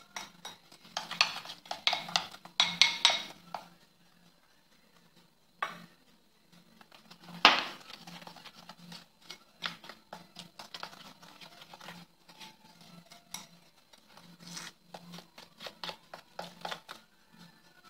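Metal spoon stirring icing sugar and milk into a thick glaze in a glass bowl, clinking and scraping against the glass in irregular strokes, with one louder knock about halfway through.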